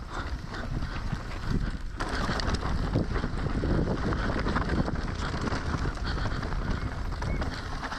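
Mountain bike descending a trail at speed: wind rushing over the microphone, with tyres rolling on dirt and a steady run of small knocks and clatter as the bike rides over rough ground.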